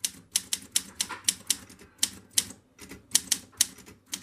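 Olympia SM3 Deluxe manual typewriter being typed on. Its keys and typebars strike the platen in sharp clacks, about four a second, at an uneven typing pace.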